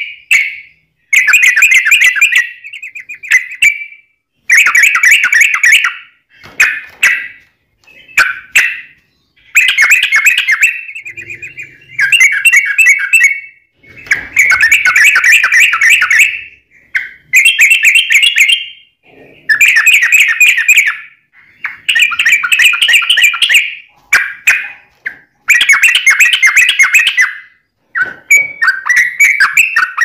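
Yellow-vented bulbul in full song, giving about fifteen bubbly, chattering phrases of one to two seconds each with short pauses between them.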